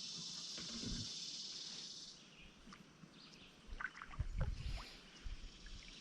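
A steady, high insect chorus that cuts off about two seconds in, followed by scattered knocks and low thumps from moving about in a small one-man boat.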